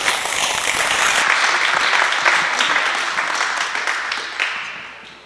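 A small group applauding, dense clapping that dies away near the end.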